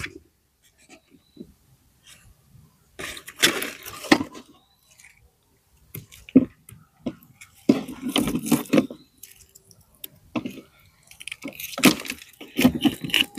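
Dry garden balsam plants rustling and crackling in irregular bursts as they are handled and pulled up.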